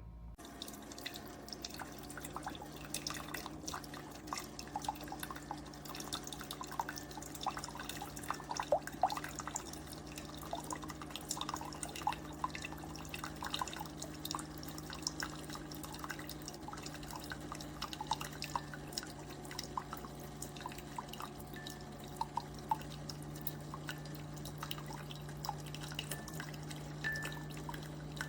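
Keurig K-Supreme single-serve coffee maker brewing: coffee drips and trickles into the cup over a steady low hum.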